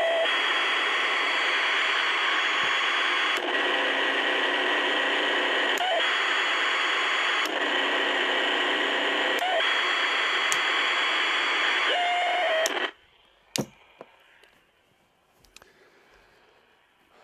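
Old AM radio tuned to 530 kHz giving out loud, harsh static-like noise: interference picked up from a nearby high-voltage power supply. The noise shifts in tone every couple of seconds and cuts off suddenly about thirteen seconds in, followed by a few faint clicks.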